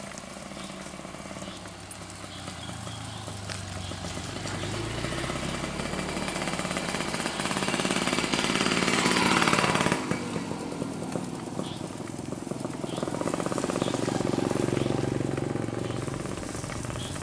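A motor vehicle's engine passing close by, with a rapid pulsing running. It grows steadily louder to a peak about nine seconds in and drops off sharply, then a second swell of engine sound follows near the end.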